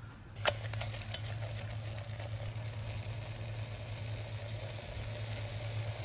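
Chunks of spiced pork sizzling as they fry in a pressure-cooker pot, after a sharp clack about half a second in. A low steady hum runs beneath the sizzle.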